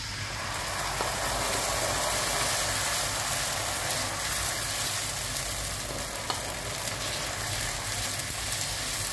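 Korean hot pepper paste sauce hitting hot olive oil and browned garlic in a frying pan, sizzling as soon as it lands and building over the first second to a steady sizzle. A wooden spoon stirs it through the pan.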